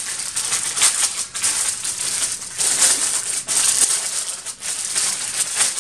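Paper seed packets rustling and crinkling as they are handled and shuffled, with the seeds inside rattling. The rustle is continuous, made of many quick crackling strokes.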